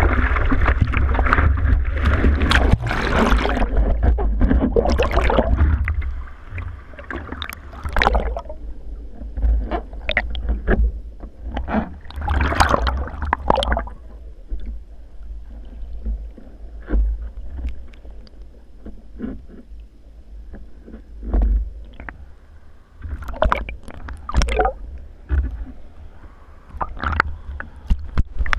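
Seawater sloshing and splashing around a surfboard as it is paddled through the surf, heard from a camera at the board's nose. For about the first six seconds there is a loud, continuous rush of churning water. After that it is quieter, with separate splashes every second or two over a constant low rumble.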